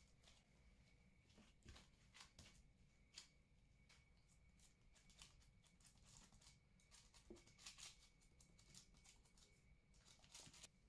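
Faint rustling and soft taps of gloved hands handling brioche dough balls, setting them on baking paper in a metal cake pan and pressing them flat, over near-silent room tone.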